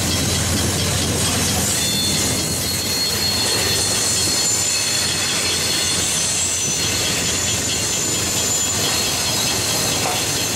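Enclosed autorack freight cars rolling past steadily on the rails. A thin, high-pitched wheel squeal rides over the rolling noise from about two seconds in until near the end.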